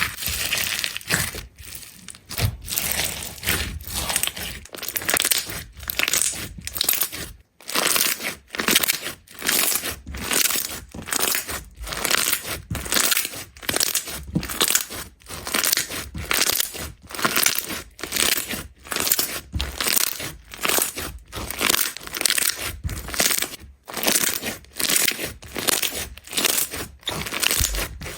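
Slime being squeezed and pressed by hand, making repeated crackling, crinkling squishes, roughly one to two a second.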